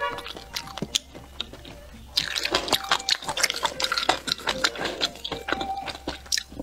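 Wet, squishy eating sounds of spicy bullfrog chewed and handled close to the microphone. They are sparse at first, then turn into dense clicky smacks from about two seconds in.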